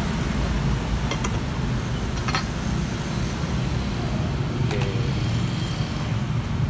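Steady low traffic rumble from passing vehicles, with a few short metallic clinks, about one, two and nearly five seconds in, as a stainless steel drink shaker is handled, opened and tipped to pour into a plastic cup.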